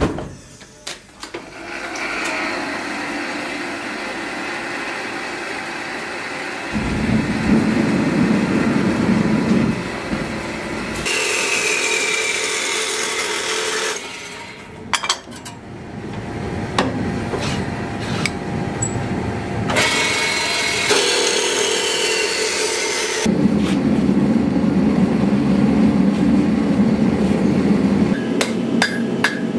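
A gas forge lighting with a whoosh and then running with a steady burner roar. It alternates with a metal-cutting saw machine running in two spells, each ending in a falling whine. Clanks of the saw's vise being set come in between.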